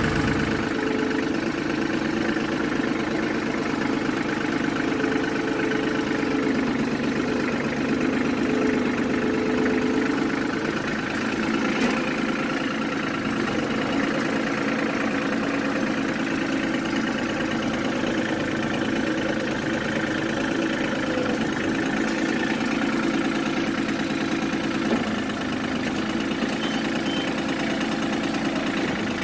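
The engine of a heavy earth-moving machine running steadily.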